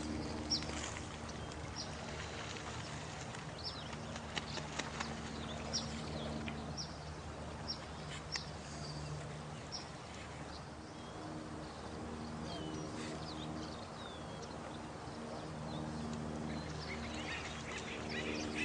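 Night-time nature ambience: short, high, falling chirps repeat about once a second through the first half. Beneath them is a lower, steady pitched animal calling that fades out and returns, over a soft, even hiss.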